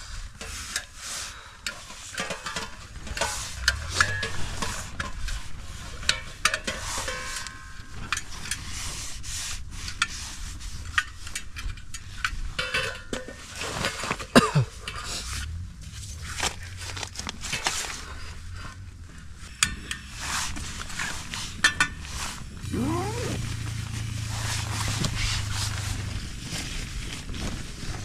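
Metal camp cookware and a portable gas stove being handled and fitted together: irregular clinks, clatters and knocks with rustling, and a steady low hum for a few seconds near the end.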